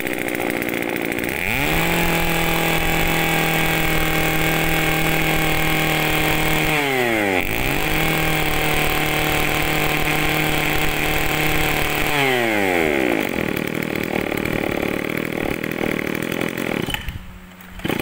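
Mitsubishi TL26 26cc two-stroke brush cutter engine running. It idles, goes up to high revs about a second and a half in, briefly eases off and picks up again around seven seconds, then drops back to idle about twelve seconds in. It drops out for a moment near the end and sounds crisp.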